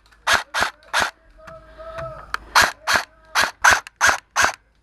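Airsoft gun firing single shots in quick succession, about nine sharp cracks in uneven clusters with a short gap near the middle.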